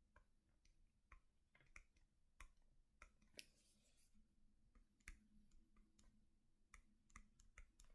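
Near silence with faint, irregular clicks and taps scattered throughout, some close together, from writing out a diagram by hand on a screen.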